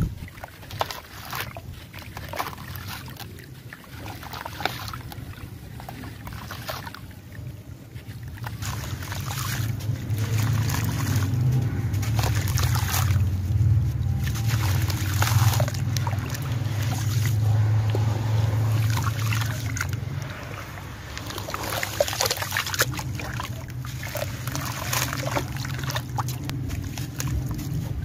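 Wet sand-cement chunks crunching and crumbling under bare hands in a pan of water, with many gritty crackles, bits dropping into the water and water trickling. A low rumble swells through the middle.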